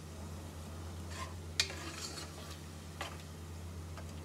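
A metal ladle stirring minced beef in a pressure cooker, scraping and knocking against the pot, with one sharp clink about a second and a half in, over a light sizzle of the meat frying in oil. A steady low hum runs underneath.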